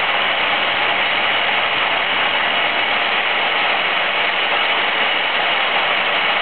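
Steady machinery noise that holds an even level throughout, with no distinct knocks, clicks or changes.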